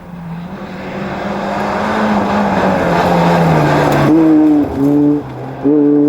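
Rally car approaching at speed and growing steadily louder. About four seconds in, its engine note comes through strongly at high revs, broken twice by brief breaks before it runs on.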